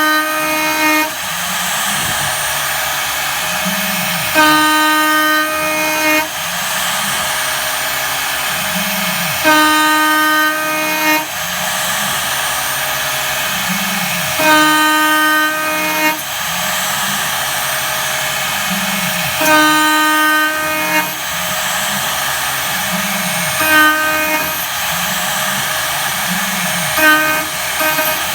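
CNC spindle running near 20,000 rpm as an 8 mm two-flute end mill side-mills 15 mm aluminium at full depth: a loud, pitched cutting whine in passes of about a second and a half, repeating roughly every five seconds, closer together near the end. Between passes, lower tones of the axis drives glide up and down in pitch over the steady spindle noise.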